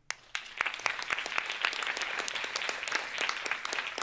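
Audience applause, many people clapping, starting a moment in and going on steadily.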